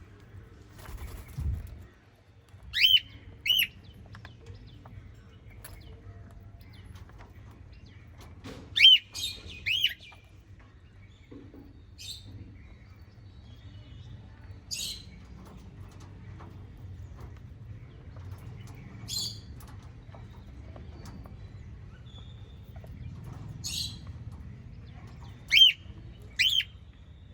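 Small pet parrots chirping: short, separate calls every few seconds, several coming in quick pairs. A low thump about a second and a half in.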